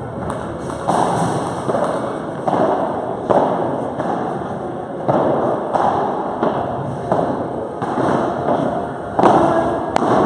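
Padel rally: the ball struck by rackets and bouncing off the court and walls, a sharp pop roughly every second, each one echoing through a large hall.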